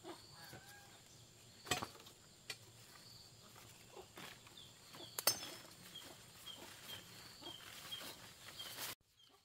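Leafy vines and stems being pulled and broken by hand: rustling leaves with sharp snaps, the two loudest close to two and five seconds in. Short high chirps repeat in the background.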